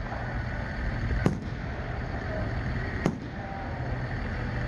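Aerial fireworks going off: two sharp bangs about two seconds apart, over steady background noise.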